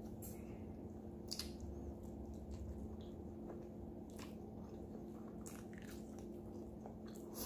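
Close-up eating sounds of roasted Cornish hen: chewing and a few short wet mouth clicks and smacks as the meat is pulled apart by hand and bitten. A faint steady hum runs underneath.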